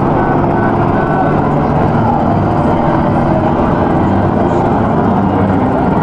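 A boat's engine running steadily as the boat cruises slowly by, a continuous low hum with no break.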